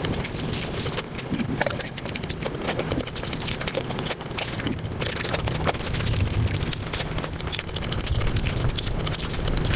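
Close-miked eating sounds, chewing and mouth smacking, played back sped up so they run together as a dense, rapid stream of wet clicks and smacks.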